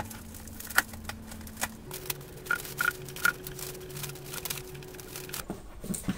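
Bubble wrap and packing tape being cut and pulled off a long cardboard parcel: scattered crackles and clicks of plastic and tape at uneven intervals.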